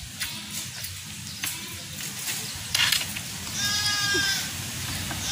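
An animal's high, pitched call, heard once in the second half and again just starting at the end, each about half a second long. A brief swishing noise comes just before the first call.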